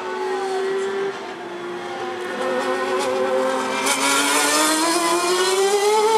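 Supercar engine holding a steady note, then dropping in pitch about a second in and climbing steadily as the car accelerates, louder over the last couple of seconds.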